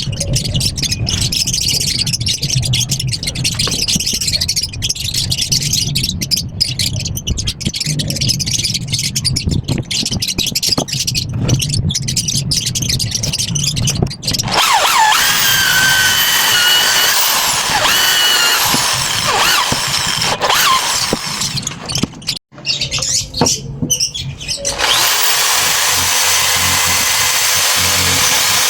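A small handheld power tool running in stretches: a rough, crackly sound for the first half, then a high whine that rises and falls, and a steady whine near the end.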